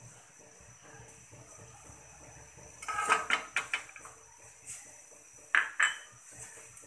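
Kitchen dishes and utensils clinking and knocking: a quick run of clinks about three seconds in, a lighter knock a little later, and two sharp clinks near the end.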